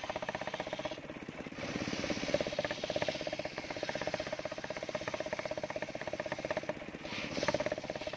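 Engine-driven circular sawmill running steadily, with a fast even pulsing beat and a steady tone; the sound dips briefly about a second in and again near seven seconds.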